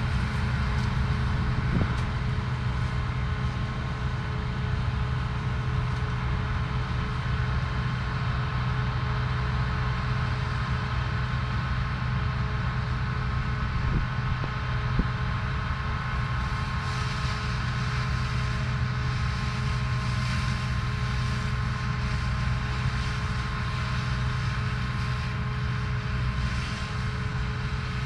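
Claas Lexion 430 combine harvester threshing rapeseed, its engine and threshing machinery running in a steady hum with several held tones.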